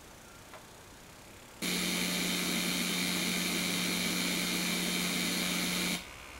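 A burst disc on a hot water pressure washer's heating coil venting pressurised steam and water as a steady rushing hiss with a low hum. It starts abruptly about one and a half seconds in and cuts off suddenly about six seconds in.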